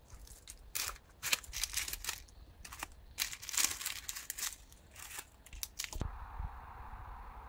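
Baked puff pastry and baking paper crackling and crinkling in irregular bursts as the flaky pastries are handled and moved onto a serving tray. About six seconds in the crackling stops and a steady hiss takes over.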